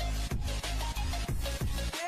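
Electronic background music with a heavy bass and a steady beat.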